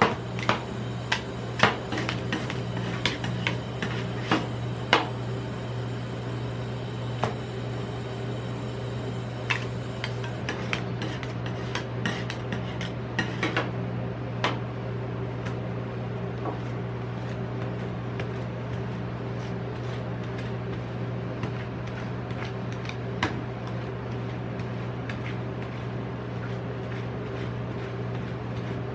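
Metal spatulas on a frozen ice cream roll plate: sharp taps and knocks, frequent for the first half and then sparser, with scraping between them, over a steady low hum.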